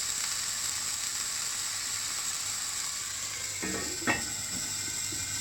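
Salmon fillet frying skin-side down in olive oil on a tawa over a low flame: a steady, gentle sizzle. A brief knock sounds about four seconds in.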